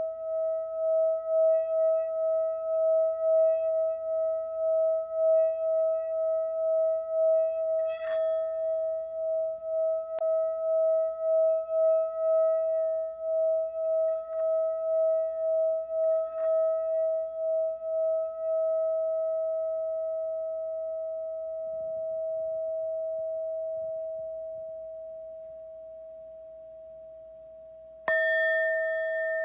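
A singing bowl rings with a steady, wavering pulse, touched lightly twice in the first half. The ring fades away through the second half. Near the end it is struck again and a fresh, brighter ring starts.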